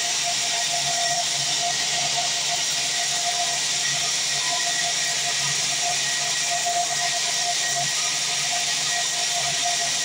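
Large vertical bandsaw mill running without a cut, a steady hiss of the moving blade and wheels with a constant whine underneath.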